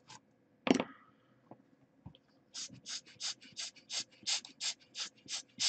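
Brisk scrubbing strokes on a phone circuit board as it is cleaned with alcohol: a rapid, even run of short scratchy strokes, about four a second, starting about two and a half seconds in. A single sharp knock comes near the start.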